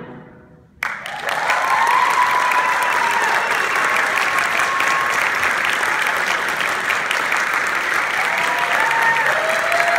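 Applause from the audience and the choir, breaking out suddenly about a second in after a brief hush and going on as steady, dense clapping.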